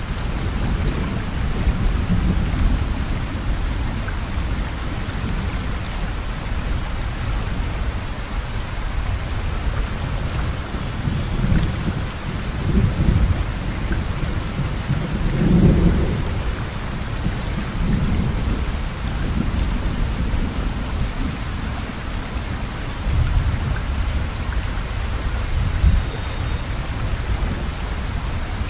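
Steady rain falling, a constant hiss, with deep rumbling swells rising and fading several times; the strongest comes about halfway through.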